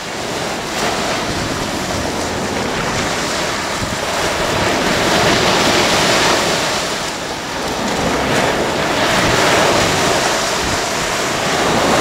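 Rough sea waves breaking onto a sandy shore: a continuous rushing surf that swells and eases, with a brief lull about seven seconds in.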